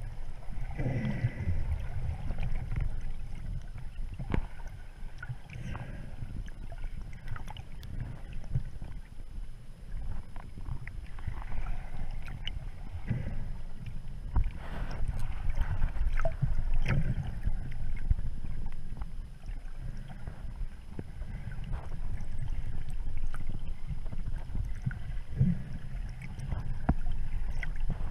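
Muffled underwater sound picked up by a camera moving through shallow sea water: a steady low rumble with scattered clicks and knocks.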